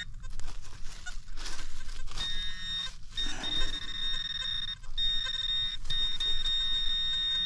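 A small hand pick strikes into leaf-covered forest soil several times, while a metal detector's high electronic tone sounds steadily from about two seconds in, broken by brief gaps. The tone signals a metal target in the spot being dug.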